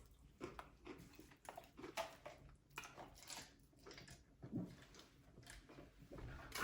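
Faint, irregular eating sounds of fried chicken being chewed: soft mouth clicks and smacks at uneven intervals.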